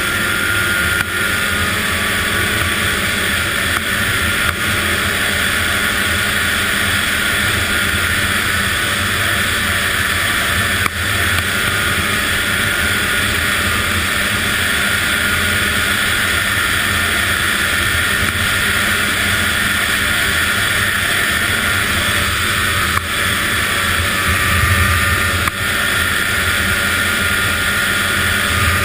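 Arctic Cat ZR 800 snowmobile's two-stroke engine running steadily under way.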